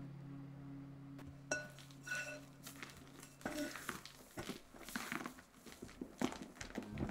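Rubber spatula folding stiff meringue into pancake batter in a glass bowl: irregular soft scraping and squelching of the foam, with light clicks of the spatula against the glass.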